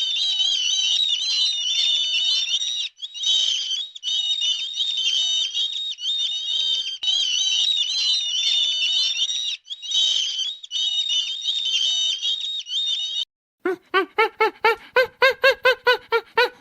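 A dense chorus of high-pitched chirping from many small birds, which cuts off abruptly about 13 seconds in. After a short gap comes a rapid run of short, pitched animal calls, about five a second.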